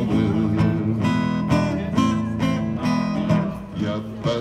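Acoustic guitar strummed in a steady rhythm of about two strokes a second, with chords ringing between the strokes. It is an instrumental passage between sung lines, and it eases off briefly near the end.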